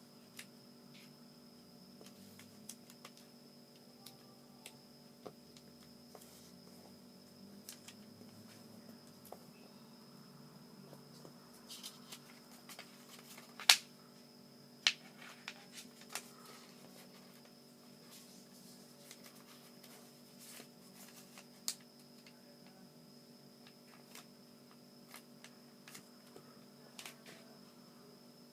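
Origami paper being folded and creased by hand: scattered crisp clicks and light rustles, with a cluster of sharper snaps about halfway through. Under it runs a steady low hum with a faint high whine.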